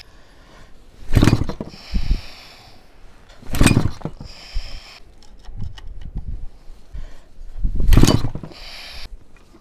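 Hangkai 4 hp two-stroke outboard motor pull-started by a bare rope wound on the flywheel, with no recoil starter: three hard pulls, each a sharp rasp followed by a brief whir as the flywheel spins down. The engine turns over but does not fire or catch at all.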